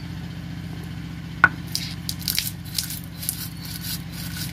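Dry-roasted whole garam masala being ground, with a sharp crack about one and a half seconds in followed by irregular crunching and crackling.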